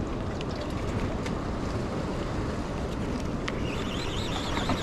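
Steady wind noise on the microphone over fast-running tidal water. Near the end a faint, wavering high whine joins in.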